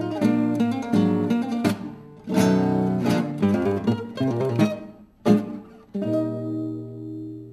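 Two classical nylon-string guitars playing the closing bars of a tango: quick plucked chords and runs, a short sharp accent about five seconds in, then a final chord left to ring and fade.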